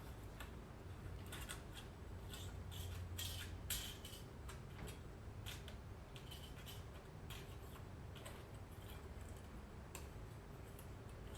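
Scattered light clicks and rustles of small handwork around a door seal, a few with a brief squeaky edge, over a low steady hum.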